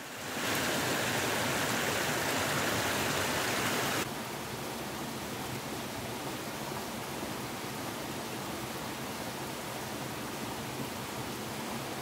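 Mountain stream water rushing steadily over rocks. A louder, hissier rush at first drops suddenly about four seconds in to a softer, even flow.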